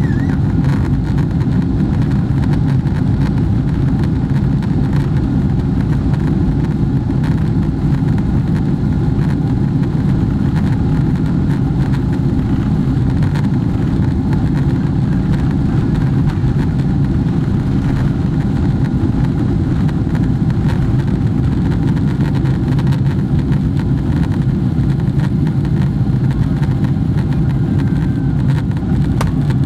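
Steady, loud drone of a Boeing 777-300ER's GE90 engines and airflow, heard from inside the passenger cabin. The deep rumble holds even throughout, without rising or falling.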